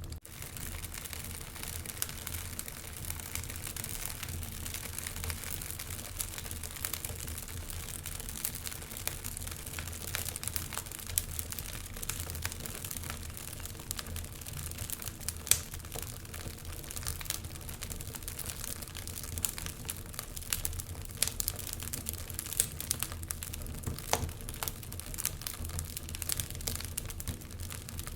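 Wood fire crackling in a fireplace: a steady hiss with irregular small pops and snaps throughout, one louder pop about halfway through.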